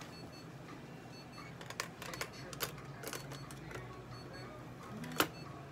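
Handling noise on a metal veterinary exam table: scattered light clicks and taps, then a short rising sound about five seconds in that ends in a sharp click, the loudest moment. Under it run a faint repeating electronic beep and a low hum.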